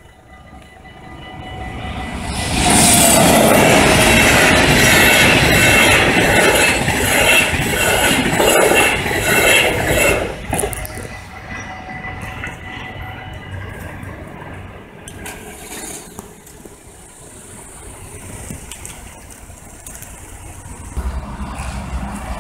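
IC Berlin intercity train, hauled by an NS 1700 electric locomotive, passing at speed with a rhythmic clatter of wheels over the rails. It grows loud about two seconds in, holds for some seven seconds, and breaks off abruptly at a cut, leaving quieter steady noise.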